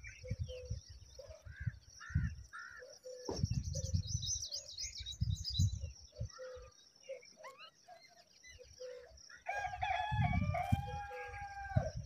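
Bird calls and chirps throughout, and near the end a rooster crows once, a long call of about two seconds.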